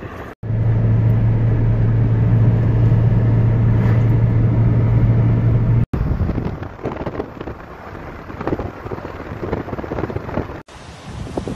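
Sound of a car driving, heard from inside: a loud steady low drone for the first half, then after a cut, wind rushing and buffeting the microphone. Near the end, another cut brings in gusty wind.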